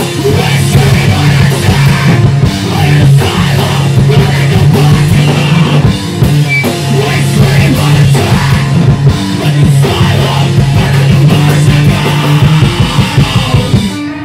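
Live math-rock band playing loud, with electric guitar and a drum kit with cymbals.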